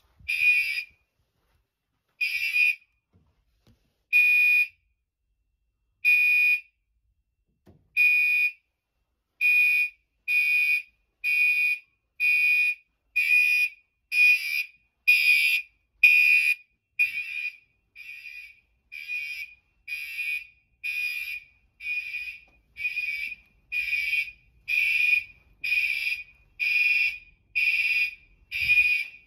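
Fire alarm horn/strobe sounding in pulses of a high horn tone. The pulses come about every two seconds, then speed up to about one a second some nine seconds in, while an FM-200 suppression system is being tested.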